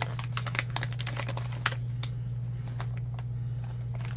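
The resealable zip-lock closure of a thick packaging pouch being pulled open: a run of small, irregular clicks and crackles, denser in the first two seconds and sparser after, over a steady low hum.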